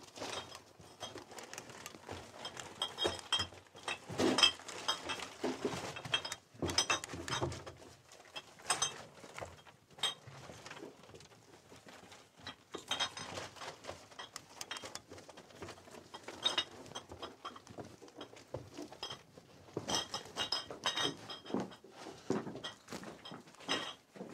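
Shuffling footsteps and handling noise, with irregular knocks and small metallic clinks scattered throughout.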